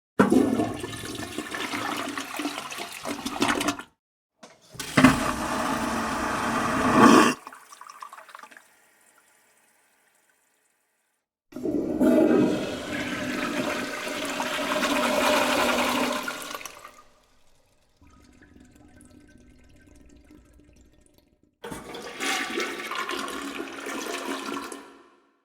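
Four toilet flushes one after another, each a few seconds of rushing, swirling water, separated by abrupt cuts to silence. The third flush is the longest and trails off into a quieter trickle as the bowl refills.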